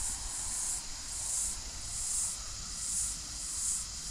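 Insect chorus: a high-pitched shrill drone that swells and fades in a regular pulse, a little more than once a second.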